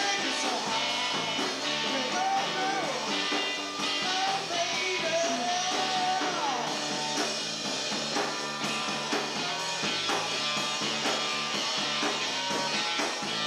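Live rock band playing: electric guitar over a steady drum-kit beat, with a lead line that bends and slides in pitch around the middle.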